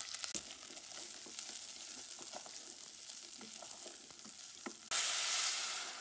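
Rice and white beans frying in olive oil and butter in a stainless steel pot, sizzling and crackling as a wooden spoon stirs them. About five seconds in, water poured into the hot pot hisses loudly for about a second.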